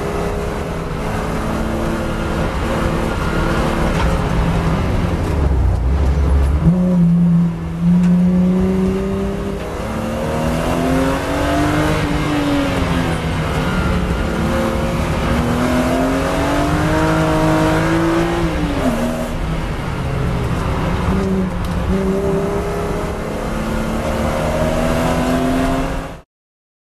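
BMW E36 M3 3.2-litre straight-six heard from inside the caged cabin on a track lap, revving up and falling back again and again as the driver shifts and lifts for corners. The sound cuts off suddenly near the end.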